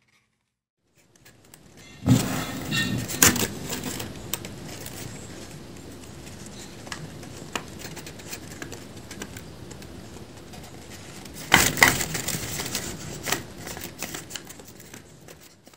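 Paper rustling and crinkling with many small clicks as a folded-paper dragon puppet is handled and its jaw worked, louder at two points about two seconds and about eleven seconds in.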